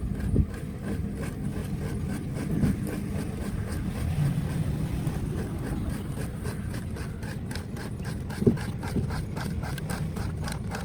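Steady low rumble of traffic and engines. About two-thirds of the way in, a rhythmic scraping starts at about three strokes a second: a rasp roughening a rubber inner tube to prepare it for a patch.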